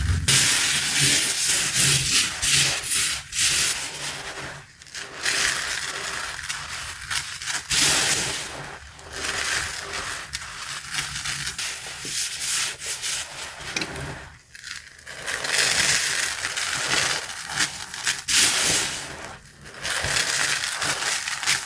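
Crunchy cornstarch being crushed and rubbed: a dense, gritty crunching in long stretches, broken by a few brief pauses.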